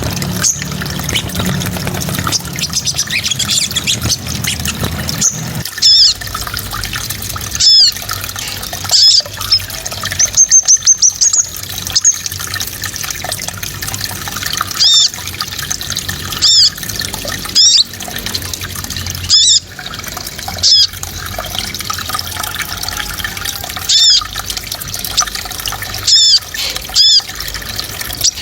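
A small songbird giving loud, sharp, high whistled calls, short notes repeated every second or two, with a fast trill about ten seconds in, over a steady watery hiss.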